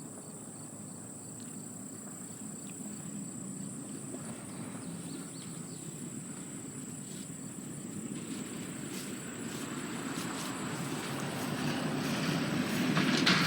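Crickets trilling in one steady high tone, over the low rumble of a vehicle engine that grows steadily louder through the last few seconds.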